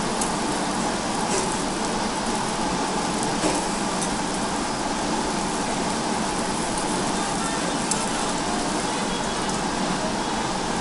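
Meat sizzling on a yakiniku tabletop grill: a steady crackling hiss, with a few faint clicks.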